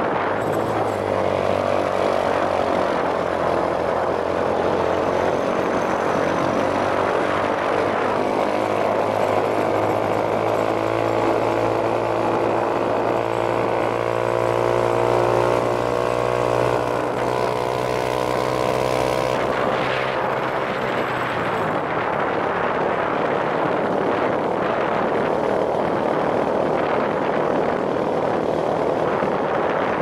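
Small motorcycle engine pulling up a steep hill under load; its pitch climbs steadily for several seconds in the middle before dropping back. Wind buffets the microphone throughout.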